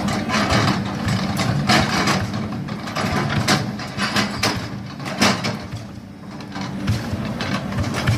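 Cat 320D excavator's diesel engine running steadily under work, with irregular knocks and scrapes from the machine working soil.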